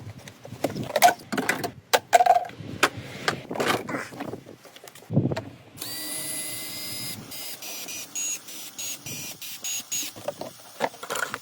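Clicks and knocks of parts being handled, then a cordless power drill or screwdriver whining in one steady run about six seconds in, followed by several short trigger bursts.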